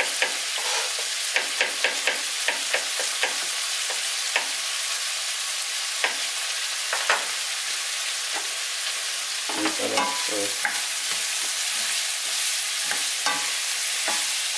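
Beef and vegetables sizzling steadily in a frying pan. During the first few seconds a knife chops garlic on a plastic cutting board in quick taps, followed by scattered single knocks and a brief clatter about ten seconds in. Near the end a spatula stirs the pan.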